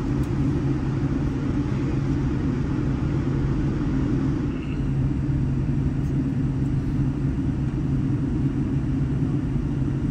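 Steady low rumble and hum in the passenger cabin of a Boeing 787-10 still taxiing after landing.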